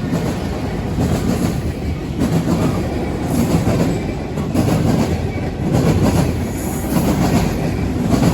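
A train rolling past at close range: a steady rumble of wheels on rail, with a clack about once a second as the wheels cross rail joints.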